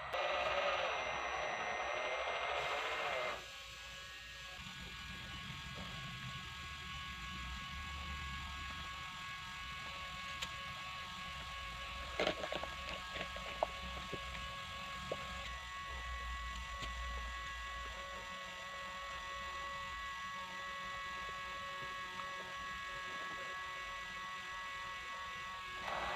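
Small electric motor and gearbox of an RC truck running with a steady whine and a low hum, louder and noisier for the first few seconds, with a few sharp clicks around the middle.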